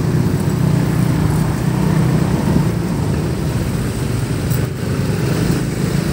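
Steady street traffic: car and motorcycle engines running with a continuous low drone.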